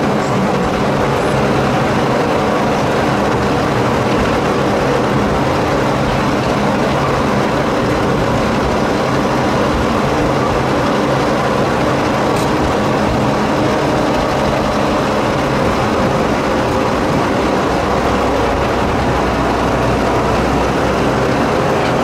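A small diesel locomotive's engine running steadily as it hauls passenger cars along a narrow-gauge forest railway, with the rumble of the wheels on the track; the low rumble grows stronger near the end.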